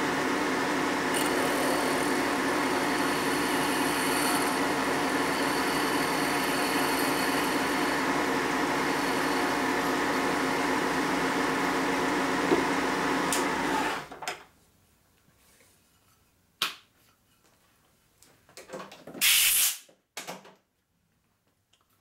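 Vertical milling machine spindle running steadily while a small drill bit is fed into an aluminum Harley Panhead cam cover at about 1,000 RPM. The machine stops about 14 s in. A few light knocks and one short, loud noisy burst follow near the end.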